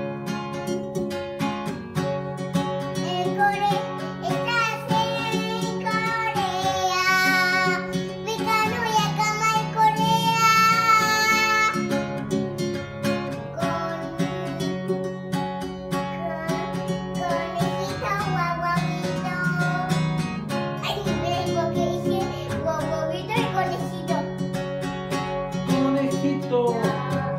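Acoustic guitar strummed steadily while a young girl sings over it. Her singing is loudest and highest in a long, wavering stretch from about six to twelve seconds in.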